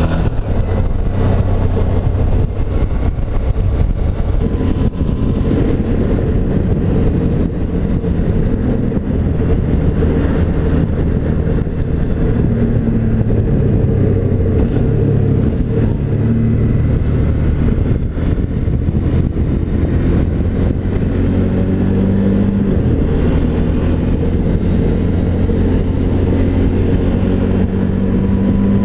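Suzuki V-Strom's V-twin engine running steadily at road speed, mixed with wind noise; the engine note shifts up and down a few times.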